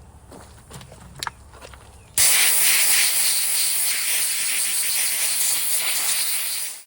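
A few faint clicks, then about two seconds in a hand-held spot sandblaster starts: a loud, steady hiss of compressed air and sand blasting the pedal assembly. It cuts off suddenly near the end.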